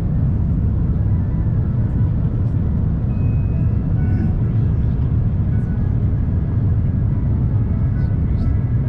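Steady low rumble of airliner cabin noise inside an Airbus A350-900 on approach, heard from a window seat over the wing.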